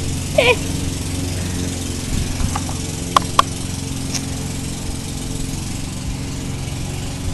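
Lawn mower engine running steadily, a constant hum throughout. Two sharp clicks sound close together about three seconds in.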